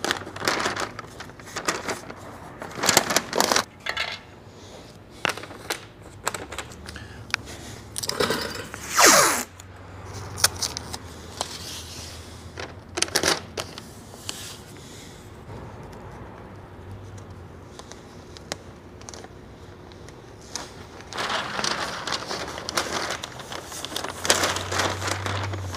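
Masking tape being pulled off the roll, torn and pressed onto a car body panel, among scattered clicks and scrapes of handling. One loud screech falling in pitch about nine seconds in.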